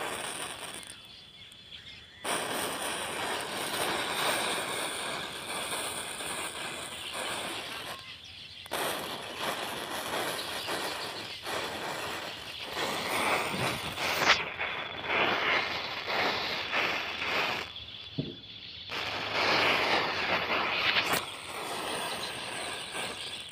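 Rows of matchsticks catching fire one after another: a steady hissing crackle of match heads flaring, broken by three short pauses.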